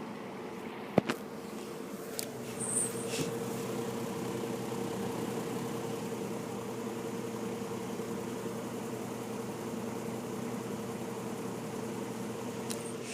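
Antique GE F15W12 box fan running on low speed: a steady motor hum with a clear held tone. A sharp click about a second in, and a few faint ticks shortly after.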